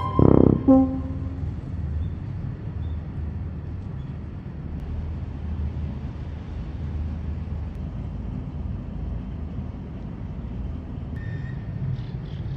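Background music ending within the first second, then a steady low rumble of outdoor background noise, with a few faint, short high chirps near the end.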